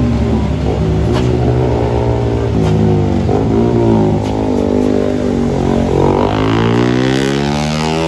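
Engines of road traffic working up a steep climb: several low engine drones overlap, and one engine's pitch rises steadily from about six seconds in as it accelerates.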